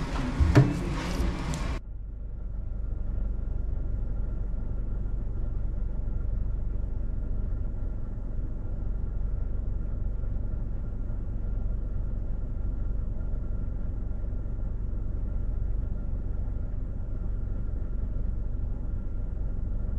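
Indoor restaurant bustle with a sharp knock for about two seconds. Then a car idling, heard from inside the cabin as a steady low rumble with a faint steady high tone.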